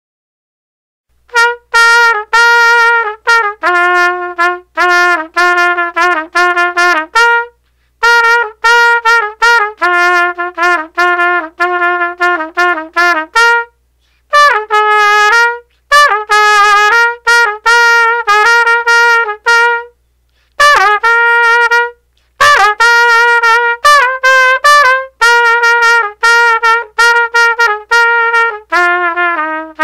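Music: a single trumpet-like melody played in short, detached notes, in phrases broken by brief pauses. It starts about a second in.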